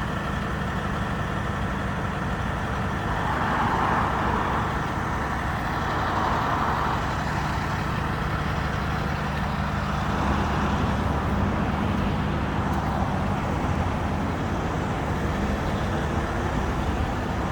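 A heavy engine idling steadily, a low, even hum throughout, with a few brief louder swells in the mid range.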